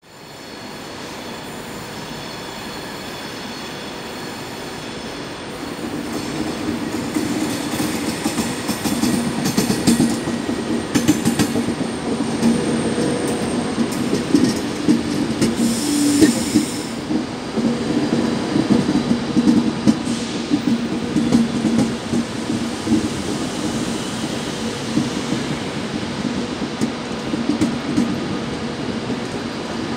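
Class 390 Pendolino electric train running slowly past along a curved platform, with its wheels clicking over the rail joints and squealing now and then. The sound grows louder from about six seconds in.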